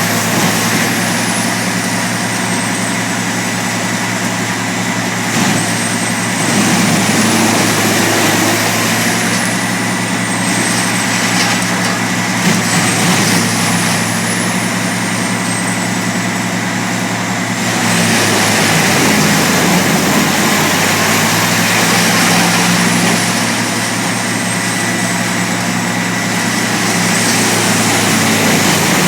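CBI Chipmax wood chipper running: a steady heavy engine note under loud, dense machine noise, with a faint high whine that slowly rises and falls several times.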